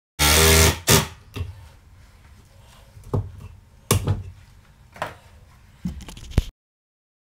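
Cordless driver running in a short burst of about half a second, driving a screw into the wood support, followed by a handful of sharp knocks and clatter of the tool and wood being handled. The sound cuts off suddenly near the end.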